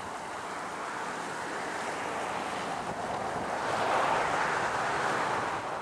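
Steady rushing hiss of steam venting and bubbling from a hot mud pool, swelling louder about four seconds in.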